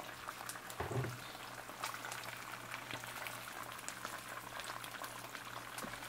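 Whole snappers frying in hot oil in a non-stick pan: the oil sizzles steadily, with many small pops and crackles.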